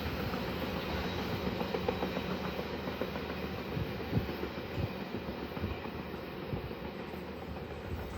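Double-stack intermodal freight cars rolling past at speed, a steady rumble with steel wheels clicking over rail joints, slowly fading.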